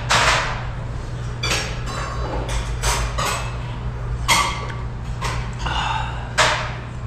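Metal spoon and chopsticks clinking against bowls while eating: several short, sharp knocks with a brief ring, spaced irregularly, over a steady low hum.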